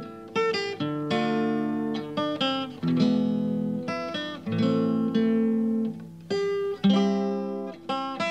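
Acoustic guitar strumming chords with no singing: an instrumental stretch of a song's accompaniment, each chord struck and left to ring.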